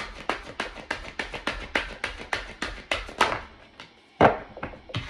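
Oversized tarot cards being shuffled by hand: a quick run of soft slaps and taps, about five a second, that stops a little after three seconds, followed by one louder slap about a second later.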